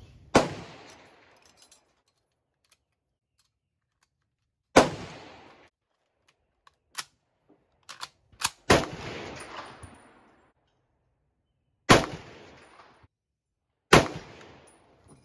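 Rifle shots on an outdoor range: five sharp reports at uneven intervals, each followed by about a second of echo. Between the second and third shots there are a few light clicks.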